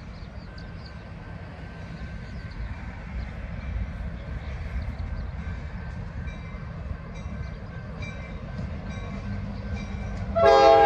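Diesel freight locomotives on the Rio Valley Switching Company line approaching, a low rumble slowly growing louder. About ten seconds in, the lead locomotive's air horn sounds loudly, several tones at once in a chord.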